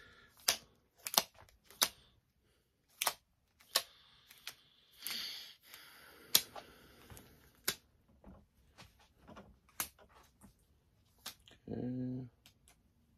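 Scattered light clicks and taps, with a short rustle of plastic about five seconds in, as latex modelling balloons are handled and taken from their bags. A brief low hum comes near the end.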